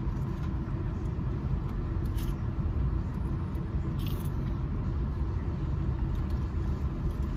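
Steady low rumble inside a car cabin with the engine running. Two brief crisp crunches of someone eating come about two and four seconds in.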